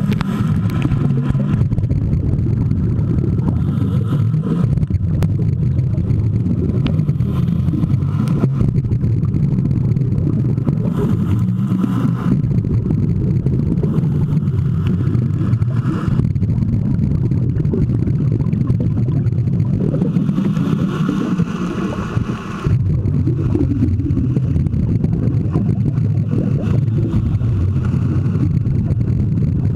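Steady muffled low rumble of a camera recording underwater through its housing, with bubbling from scuba divers' regulators coming and going every few seconds.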